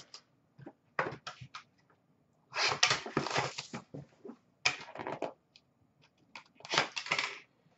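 Handling and opening a cardboard box of hockey cards: a few light clicks, then several short rustling, scraping bursts of cardboard and wrapping.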